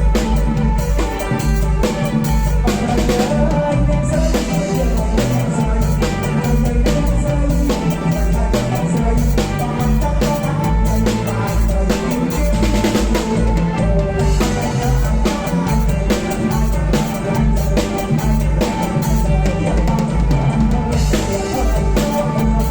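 Kantrum-style band music played live, driven by a drum kit: a steady bass-drum beat with snare and rimshot hits under the band.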